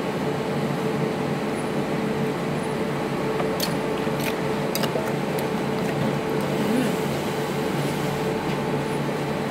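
Wooden pestle and metal spoon tossing boiled bamboo shoots in an earthen mortar, with a few light clicks of the spoon against the mortar about four seconds in, over a steady mechanical hum.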